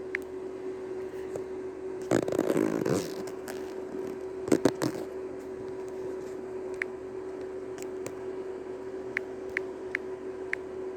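Handling noise over a steady low hum: a brief rustle about two seconds in, then a few quick clicks a couple of seconds later, and faint ticks after that.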